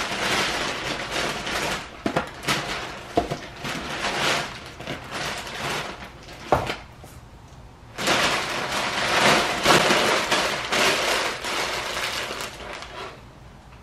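Thin plastic grocery bags rustling and crinkling as they are unpacked and crumpled, with a few short knocks of items set down on a countertop.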